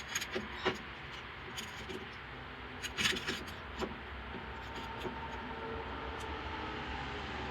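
Scattered metallic clinks and taps of hand tools and fasteners under a car, with a brief cluster of them about three seconds in.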